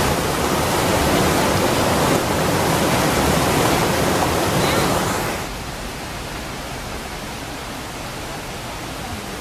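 Rushing water of the Oirase mountain stream, a steady loud rush that drops suddenly to a quieter rush about five seconds in.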